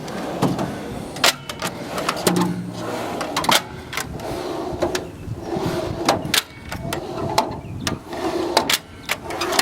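Handling noise: a string of sharp clicks and knocks, with rustling in between.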